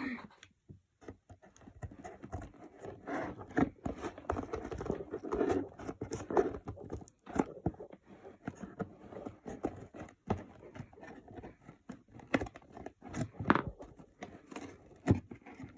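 Two-layer shoebox cardboard being cut and torn by hand: irregular scraping and crunching with many sharp snips and clicks.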